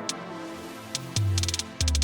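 Background music: a synthesised track with a deep bass note and short percussive hits.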